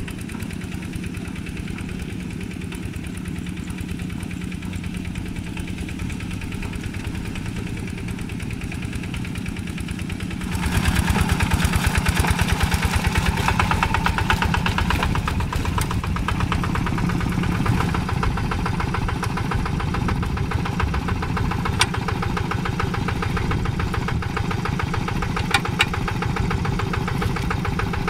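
Single-cylinder diesel engine of a two-wheel walking tractor running steadily with a fast, even chug as it pulls a plough through a wet paddy. About ten seconds in, the sound gets louder and harsher.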